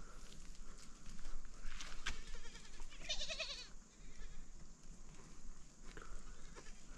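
A Himalayan goat bleats once, a quavering call that starts about two seconds in and lasts about a second and a half, with a few small knocks around it.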